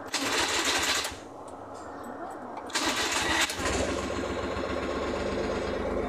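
Suzuki F6A three-cylinder engine being started: two short bursts of cranking, then it catches about three and a half seconds in and settles into a steady idle.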